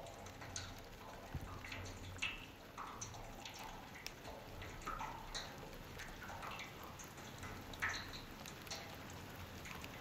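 Rainwater dripping into a storm sewer below a cast-iron manhole cover: irregular drips, one or two a second, over a faint trickle, with two louder drips, one about two seconds in and one near eight seconds.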